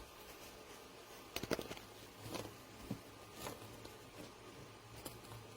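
Faint handling noises from a softshell suitcase and its tags: a few soft clicks and rustles, the loudest cluster about a second and a half in, over a low steady hum.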